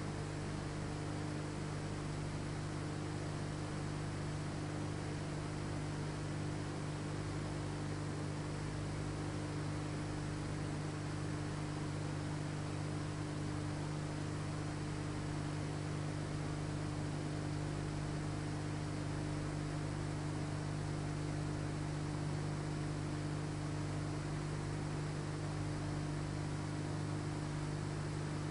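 Steady electrical mains hum over an even hiss, unchanging throughout, with no working sounds in it.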